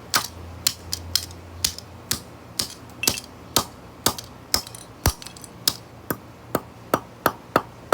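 Repeated sharp knocks, about two a second, as a capacitor taken from a light bulb is struck until it breaks.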